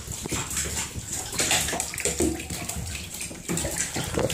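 A Colombian gold tegu thrashing in bathwater as it tries to climb out of the tub: irregular splashes and sloshing throughout.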